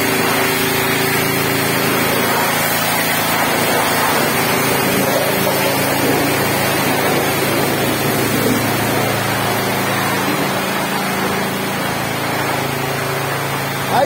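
High-pressure water spray hissing steadily against a motor grader's steel frame, over the even hum of a running motor.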